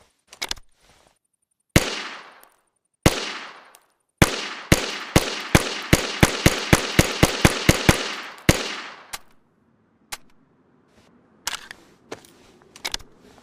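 Ruger 10/22 semi-automatic .22 rifle firing: two single shots, then a rapid string of about fifteen shots that come quicker toward the end, each followed by a short ringing tail. After the string, a few light clicks.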